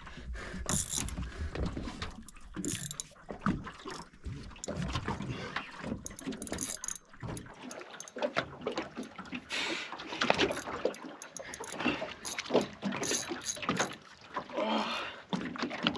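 Water sloshing around a small aluminium boat, with irregular clicks and knocks.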